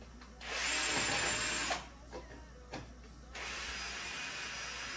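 Cordless electric screwdriver running in bursts on the screws of a wall-shelf bracket: a loud run of about a second and a half starting about half a second in, then a quieter steady run near the end.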